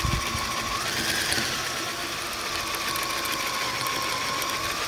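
Electric drill running with a 5/8-inch wood spade bit, boring a hole through a plastic coolant expansion tank. Its motor gives a steady whine that rises briefly about a second in.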